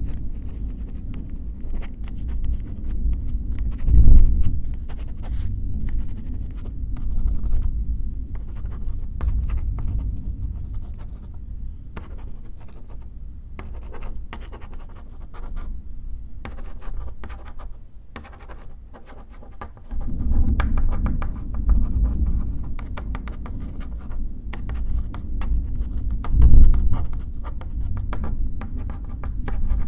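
Pen scratching on paper in quick, irregular writing strokes over a low rumble of distant thunder. The thunder swells into loud rolls about four seconds in and again near the end.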